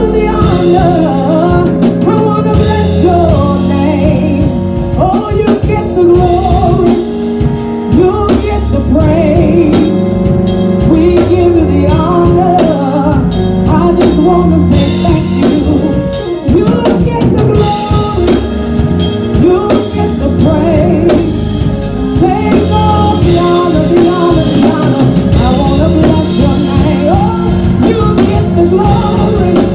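A woman singing gospel worship into a microphone, her voice gliding up and down, over steady held chords and a drum kit.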